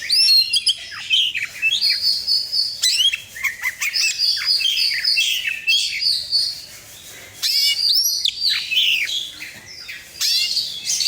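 Oriental magpie-robin (kacer) singing a rapid, varied song of high whistles, chirps and swooping notes, in several bursts with short pauses.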